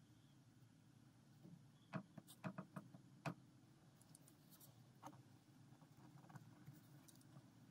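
Faint ballpoint pen drawing on paper: soft short scratchy strokes, with a quick run of sharp ticks of the pen about two to three seconds in and another single tick about five seconds in.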